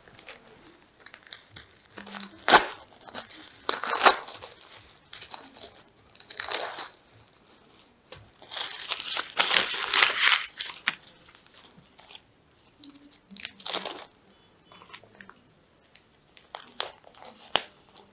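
Plastic wrapper of a sanitary pad being torn open and crinkled as the pad is unwrapped and handled, in irregular rustling bursts with a few sharp clicks, the longest about halfway through.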